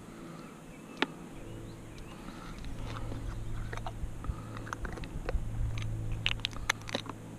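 Small plastic bait-dye jars (JJ's Magic) clicking and knocking against each other in a plastic tray as one jar's lid is twisted off, with scattered sharp clicks and a quick run of clicks near the end.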